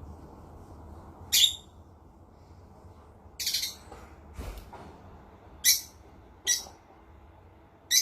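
Parrot calling in short, high-pitched squawks, about five of them at irregular intervals, one a little longer than the rest.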